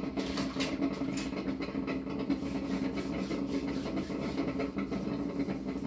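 Drip coffee maker running mid-brew: a steady low hum, with a few short clicks in the first second.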